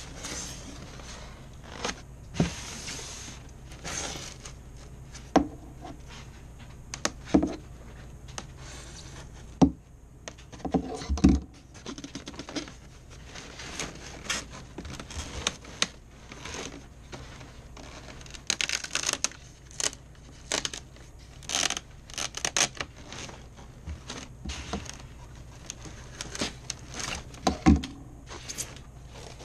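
Styrofoam packing being cut around its seal and pulled apart: scraping and tearing, with many irregular knocks and clicks as the pieces are handled, busiest a little past halfway.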